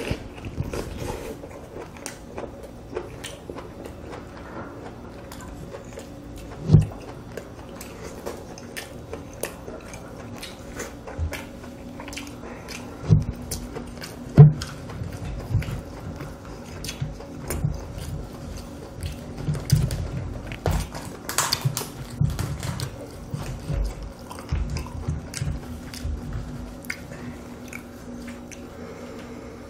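Close-miked eating of spicy mala lobster: shell pieces cracked and pulled apart by gloved hands, and the sauced meat chewed, as a run of wet clicks and crackles. Three much louder sharp knocks stand out, a third of the way through and twice in quick succession around the middle.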